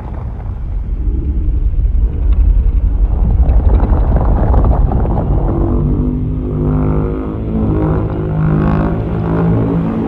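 Fan-made Godzilla monster sound effect: a loud, deep rumble, joined about halfway through by a held, pitched growl with many overtones.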